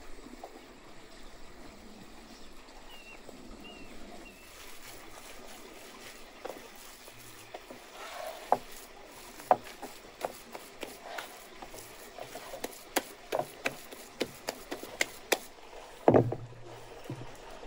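Hands kneading minced-meat filling in a wooden bowl: wet squelches and sharp slaps about one or two a second, with a heavier thump near the end as the meat is slapped down into the bowl.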